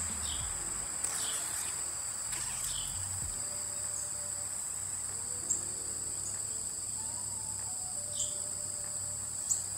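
Steady high-pitched chorus of insects. A few faint taps and rustles come now and then as a plastic window visor is handled and the red liner is peeled off its adhesive tape.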